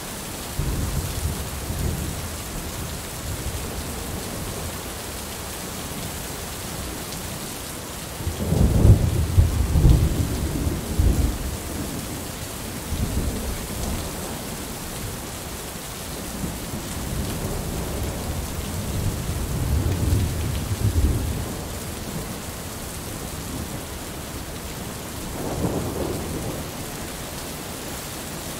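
Heavy rain falling steadily, with rolling thunder rumbling over it several times: a rumble about a second in, the loudest and longest roll about a third of the way through, another about two-thirds through, and a smaller one near the end.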